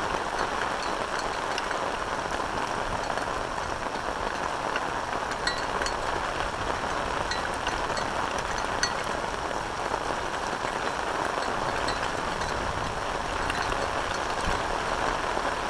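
Steady rain falling: a continuous even hiss with scattered small drop ticks.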